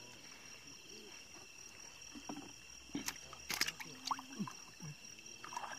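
A freshly speared tilapia being handled in a boat: a few faint clicks and knocks, most of them about three seconds in, over a steady high-pitched drone.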